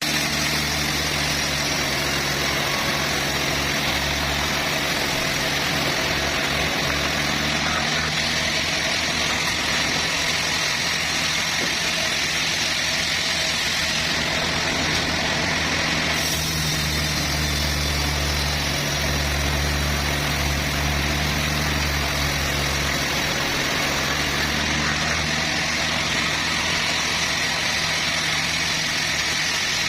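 Sawmill machinery running steadily: a low engine-like hum with a hiss above it, which shifts slightly about sixteen seconds in.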